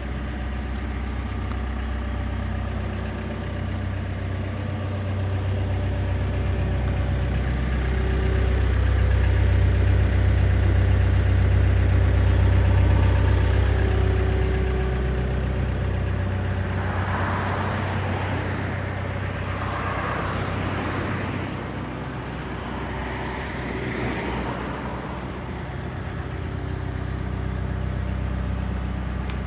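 Diesel engine of a Doosan DX140LC crawler excavator running steadily at idle, growing louder for several seconds in the middle. In the second half there are irregular patches of hissing, rushing noise.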